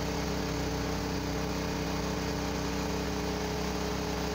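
Small passenger motorboat's engine running at a steady speed, heard from aboard.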